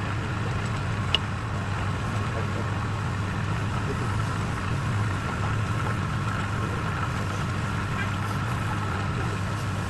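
Steady low mechanical hum of a running engine or motor, with one short click about a second in.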